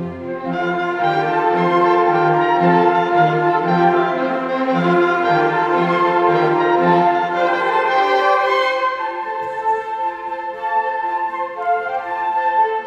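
Live orchestra playing an arrangement of traditional Christmas tunes, the full ensemble sounding together; about eight seconds in the bass drops out and the music thins to higher lines.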